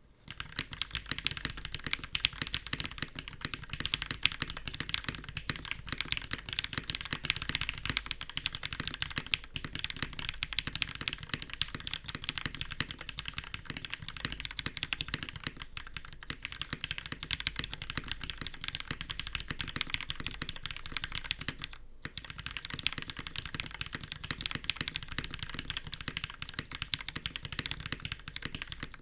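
Fast, continuous typing on a custom mechanical keyboard, a Matrix 8X V2.0 with linear retooled Cherry MX Black switches in an aluminum full plate, topped with GMK keycaps. The keystrokes come many to the second and break off briefly about two-thirds of the way through.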